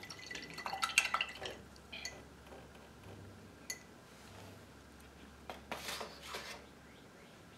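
Faint clinking of a paintbrush against a glass rinse jar: a few light clinks with a brief ringing tone in the first second and a half, single clinks about two seconds in and near the middle, then a few soft swishes later on.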